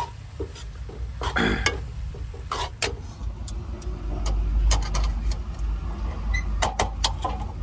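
Metal spoon scraping and clinking against an aluminium kadai as poha is stirred, in a string of sharp clicks. Underneath runs a low rumble, strongest about halfway through.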